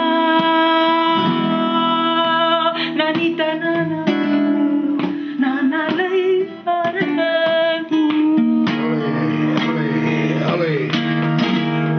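Flamenco singing with acoustic guitar: a voice holds long, wavering, ornamented notes over strummed and plucked Spanish guitar.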